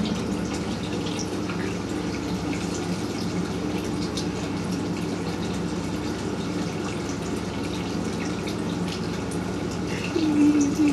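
Aquarium filter running in a small turtle tank: a steady trickle and splash of water with a faint low hum. A short louder pitched sound breaks in near the end.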